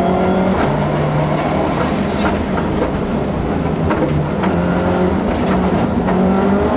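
Subaru Impreza rally car's turbocharged flat-four engine driven hard, heard from inside the cabin, its note jumping up and down in pitch with gear changes. Scattered sharp clicks are heard over the engine.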